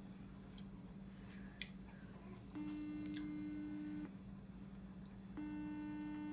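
Ringing tone of an outgoing call on a smartphone, heard through its speaker: two steady rings, the first about a second and a half long, the second starting about a second later and ending near the end.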